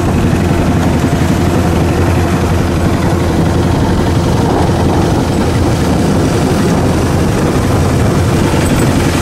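Small fishing boat's engine running steadily at an even, unchanging pace.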